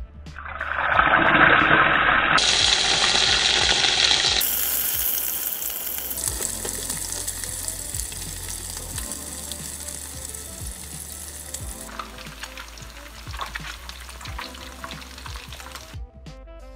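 Hot oil sizzling loudly as a split fish goes skin side down into a pan for deep frying. The sizzle bursts up about half a second in, muffled at first and brighter within a few seconds, then settles into a steadier, quieter crackling bubble that eases off further in the last few seconds.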